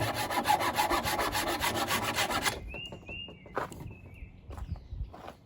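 Hand saw cutting through a dry wooden branch in quick, even back-and-forth strokes, sawing a disc off its end. The sawing stops abruptly about two and a half seconds in, leaving a few short bird chirps and light knocks.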